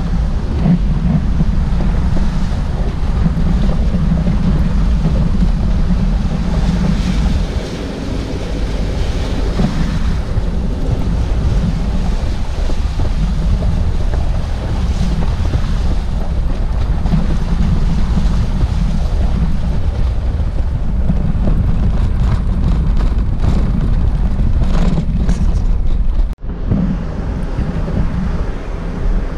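Wind buffeting a vehicle-mounted camera's microphone over steady engine and tyre noise from a vehicle driving along a rough gravel and rock track.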